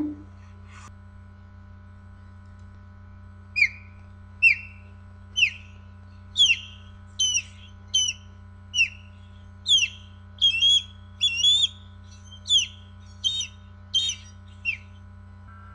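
Bird-call ringtone playing: a run of about fourteen short chirps, each sliding down in pitch, a little under one a second, over a steady electronic hum.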